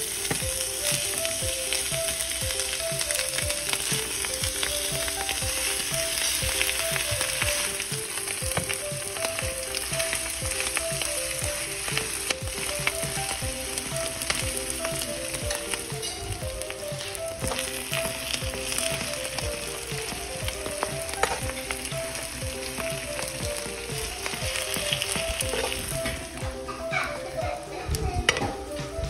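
Sisig, chopped pig's-face meat, sizzling and crackling on a hot plate while a spatula stirs it, with a few sharper scrapes and clicks near the end.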